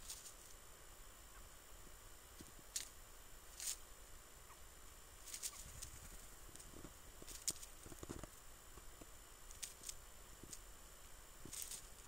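Near quiet, broken by faint, sharp ticks and rustles every second or so: small birds hopping and pecking in dry leaf litter and snow.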